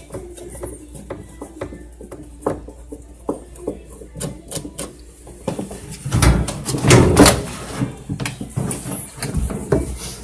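Parts of a disassembled washing machine being handled: scattered clicks and knocks, then a louder stretch of rattling and scraping about six seconds in.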